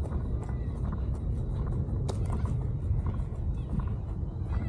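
Outdoor park ambience: a steady low rumble with light clicks and ticks scattered over it.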